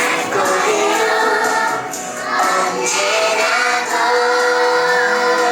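A group of young children singing together over backing music, ending on a long held note.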